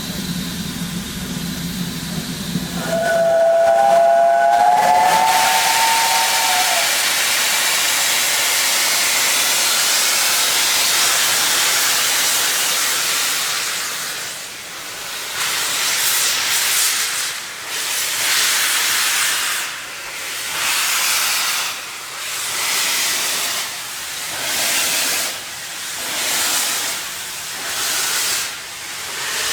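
Steam locomotive whistle sounding for about three seconds, then a loud hiss of escaping steam. The hiss settles into rhythmic surges about every two seconds as the engine starts away with slow exhaust beats.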